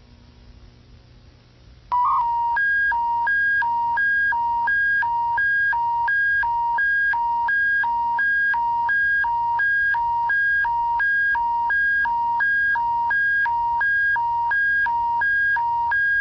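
Emergency broadcast attention signal for an Alberta public warning: two tones alternating high-low, each held about a third of a second, loud and steady, starting about two seconds in after faint low hiss.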